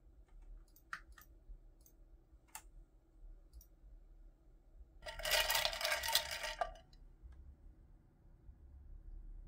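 Scattered single clicks of a computer mouse, with a louder noisy burst lasting about a second and a half around the middle.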